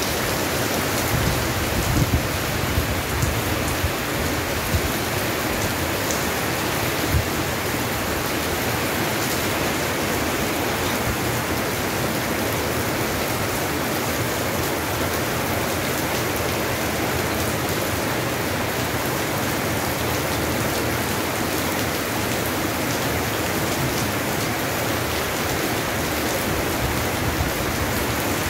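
Steady rain falling, an even hiss throughout, with a few low bumps in the first seven seconds.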